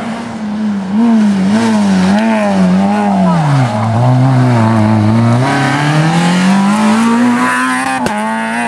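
Rally car engine revving hard, its note rising and falling quickly as the car comes down the road. The note drops low as it slows through a hairpin about four seconds in, then climbs steadily as it accelerates away and passes close by.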